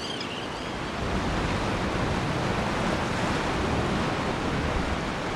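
Ocean surf washing in as a steady rush of water noise, growing louder about a second in.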